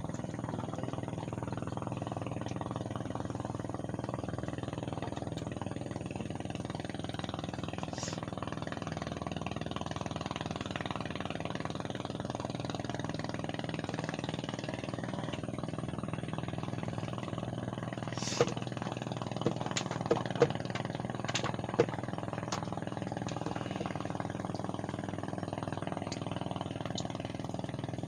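An engine running steadily at a constant speed, with a handful of sharp clicks or knocks about two thirds of the way through.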